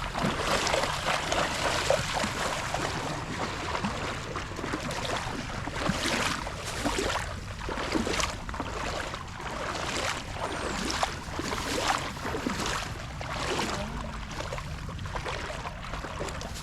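Shallow creek water splashing and trickling as someone wades through it, with a slosh from each step about once a second.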